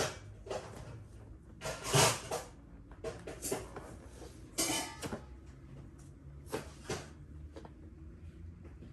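Rustling of clothing and soft knocks of a person doing full prostration bows on a mat, several short bursts a second or two apart over a steady low hum.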